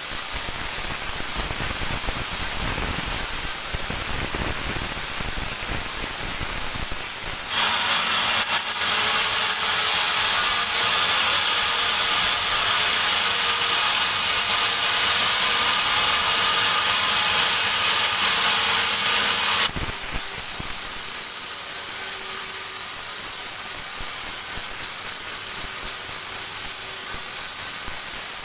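Sawmill band saw running, then cutting through a teak log: the sound grows sharply louder and hissier about a quarter of the way in, holds steady for about twelve seconds, and drops back suddenly to the running machine.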